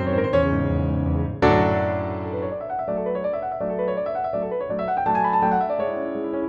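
Background piano music: a few struck chords, then a rising run of single notes over a repeated low note.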